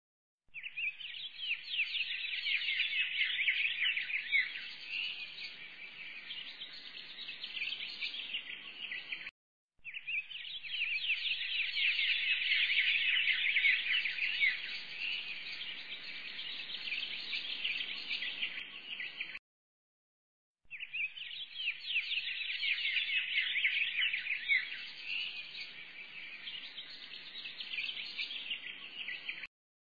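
A looped recording of a flock of small birds chirping densely, breaking off into about a second of silence and starting again roughly every ten seconds.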